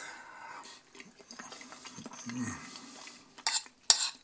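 Metal fork clinking against a ceramic plate of pasta, with two sharp clicks near the end. A short low murmur of a voice comes about two seconds in.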